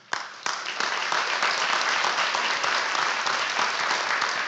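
A large audience clapping, starting about half a second in and going on steadily as a dense patter of many hands.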